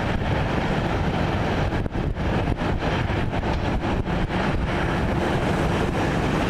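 Steady rumble of jet airliner engines, with wind buffeting the microphone in frequent short gusts.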